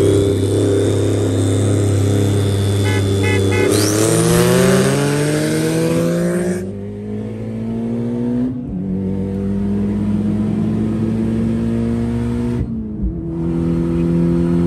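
Tuned, 410 hp Mitsubishi Lancer Evolution X turbocharged four-cylinder, heard from inside the cabin on a 40 roll race. It runs steadily, then goes to full throttle about four seconds in, the revs climbing with a high whine. The climb is cut by gear changes about six and a half and eight and a half seconds in, and the sound breaks again about thirteen seconds in. Three short beeps come just before the launch.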